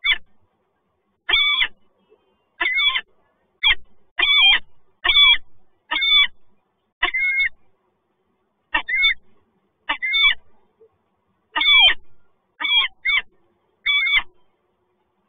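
Peregrine falcon calling repeatedly: short, sharp, arching calls about one a second, with a brief pause midway.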